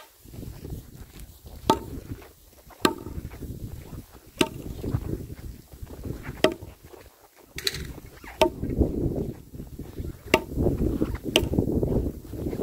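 Sharp blows of a hand tool chopping into thin ice, about eight strokes spaced one to two seconds apart, over a low rumble that grows louder in the last few seconds.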